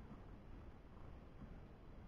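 Near silence: faint, steady low background noise with no distinct event.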